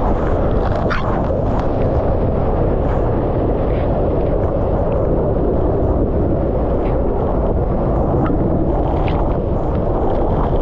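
Steady, loud rush of the large Pulhapanzak waterfall, with wind and spray buffeting the microphone. A few faint, brief higher sounds break through it.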